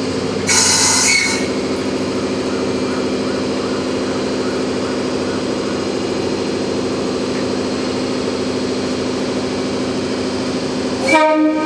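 Electric locomotive standing at a station platform, its equipment humming steadily in several tones. A brief hiss comes about half a second in, and a short pitched tone sounds near the end.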